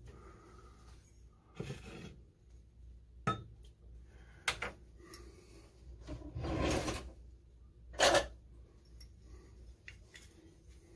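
A glass hot sauce bottle and glass measuring cup being handled while sauce is poured: several separate clicks and knocks, a longer rustling sound about six to seven seconds in, and the loudest knock about eight seconds in.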